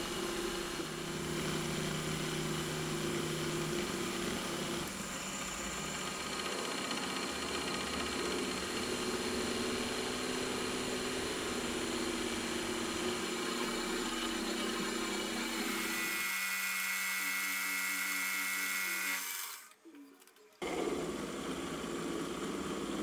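Milling machine spindle running while a three-flute countersink bit chamfers holes in an aluminium part: a steady machine sound with several tones that shift a few times. Near the end it drops out for about a second, then the mill runs again.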